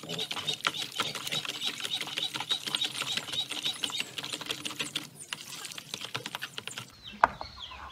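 A spoon stirring foamy homemade liquid soap in a plastic basin, making rapid clicking and scraping against the basin, thinning out after about five seconds.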